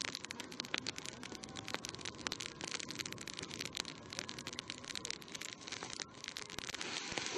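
Open wood fire crackling densely with many sharp pops, a marmot carcass lying in the flames being singed.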